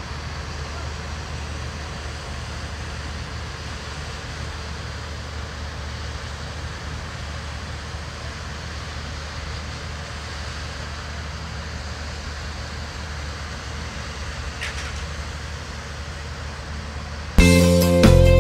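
Steady hum of distant city traffic with a low rumble. Near the end, loud guitar music starts abruptly.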